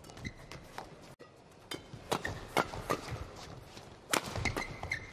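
Badminton rally: rackets strike the shuttlecock in a quick exchange of sharp hits, several a second, starting a second or two in.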